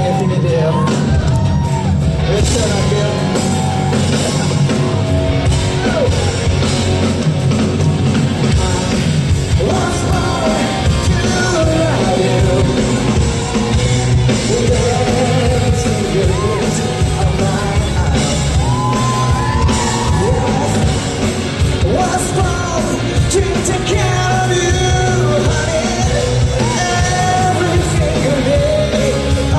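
Live rock-band music with a male lead singer singing over drums, bass and guitars, echoing in a large concert hall.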